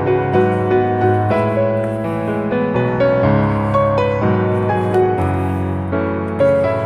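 Instrumental background music: a piano-led melody with notes changing every half second or so over a steady bass.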